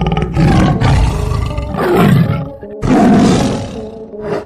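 Big cat roaring and snarling in three long, loud bursts while fighting a dog.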